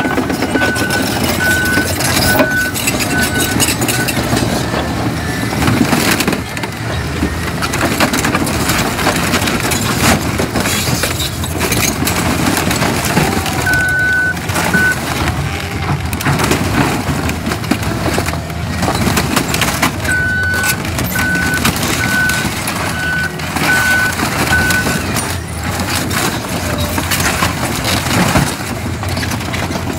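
Caterpillar crawler bulldozer running over a car, its diesel engine labouring while sheet metal and glass crunch and crack under the tracks. A reversing alarm beeps at about two beeps a second at the start, once briefly midway, and again for several seconds later on.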